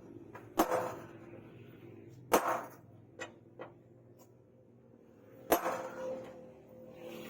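Hammer blows on steel rebar at the anvil during forging: three heavy strikes a couple of seconds apart, each ringing briefly, with a couple of lighter taps between them.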